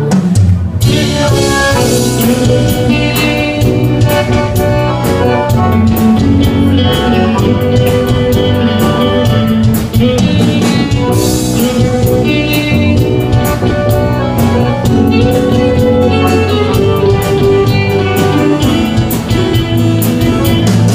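Instrumental break of a sertanejo love song: a band playing a melody over a steady drum beat, with no singing.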